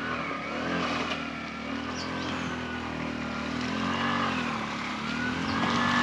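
Tuk tuk's small engine revving up and down several times as it labours through mud and slips off the edge of the track, the revs highest near the end.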